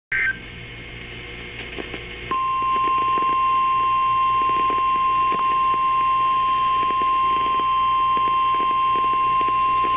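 NOAA weather radio receiver sounding its warning alarm tone, one long steady high beep that starts about two seconds in after a short burst of data tones and radio hiss. The tone signals that a severe weather warning is about to be broadcast.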